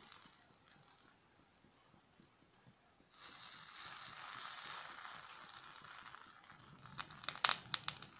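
Wet vegetable and egg batter spooned into a ring of eggplant in hot oil, sizzling suddenly about three seconds in and dying down over a couple of seconds into a low steady fry. Near the end the spoon clicks several times in quick succession.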